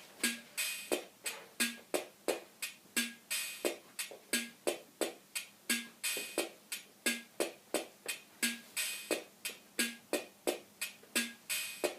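Instrumental music from the song's outro: a steady, quick percussion beat of sharp hits, about three or four a second, with a low note recurring under it.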